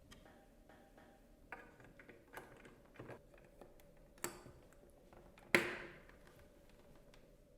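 Plastic casing parts of a Dyson V10 docking station being handled and fitted together: scattered light clicks and taps, with one sharp, louder snap about five and a half seconds in.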